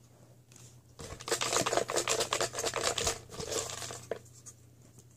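Folded paper raffle slips rustling and crinkling as a hand stirs through them in a plastic wastebasket, from about a second in until about four seconds in.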